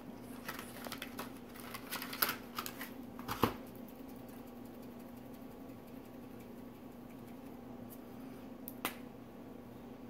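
Plastic pack of markers being handled and opened: scattered clicks and light plastic rattling for the first few seconds, with a sharper click about three and a half seconds in. After that only a faint steady low hum, broken by one more click near the end.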